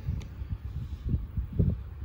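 Wind buffeting the microphone: an uneven low rumble with two stronger gusts, one about a second in and one near the end.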